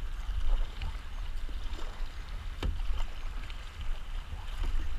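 Kayak paddling on a river: paddle strokes splashing and water sloshing against the hull, with wind buffeting the microphone. A sharp knock about two and a half seconds in.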